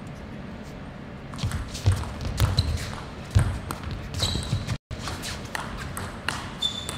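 Table tennis rally: the ball clicking sharply off the bats and the table at irregular intervals, with low thuds of the players' footwork on the court floor, in a large hall. The sound drops out for an instant about five seconds in.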